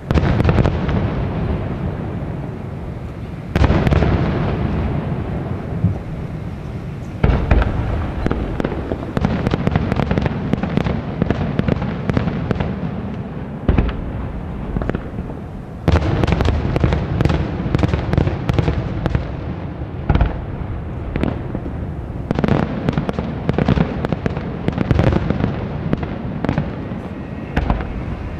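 Aerial fireworks display: heavy shell bursts every few seconds, with dense runs of rapid cracks and bangs between them.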